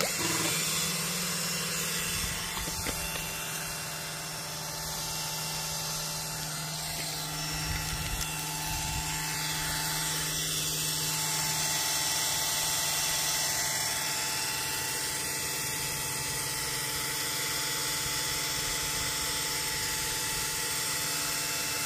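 Cordless drill driving a drill-pump attachment, running steadily as it sucks water up a hose out of a flooded water meter box. A steady whine whose tone shifts slightly about halfway through.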